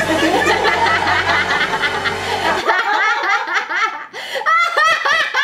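Background music with a steady low bass, which drops out a little past halfway. After that, a woman laughs hard in repeated short peals.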